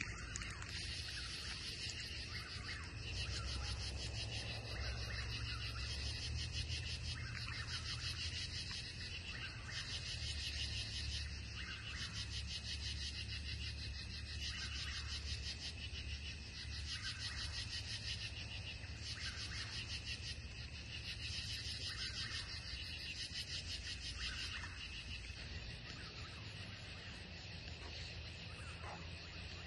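Night insect chorus: a dense, fast-pulsing high trill that swells and fades in waves every second or two, over a steady low rumble.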